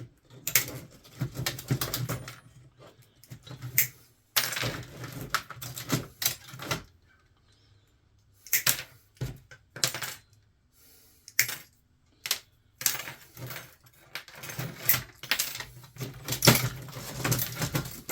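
Small wire cutters snipping and working the brass contact strips and plastic out of a power strip: irregular runs of sharp metallic clicks and clinks, with short pauses between them.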